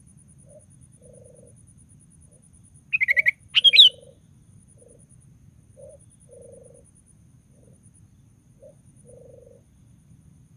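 Sooty-headed bulbul (kutilang) giving one short burst of quick, loud chattering notes about three seconds in, then a second, louder phrase just after. A soft low two-part call repeats every two to three seconds in the background.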